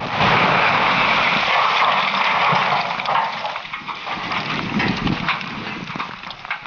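Explosive demolition of a missile launch facility silo: a sudden loud blast, then several seconds of rushing noise with scattered crackles, fading over the last few seconds.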